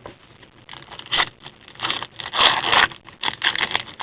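Trading cards being handled, giving a string of short scraping and rustling sounds as cards slide against each other. The longest and loudest comes a little past the middle.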